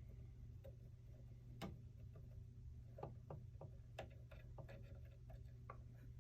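Faint, irregular small clicks and ticks of an Allen wrench working screws out of an instrument's cover, over a low steady hum.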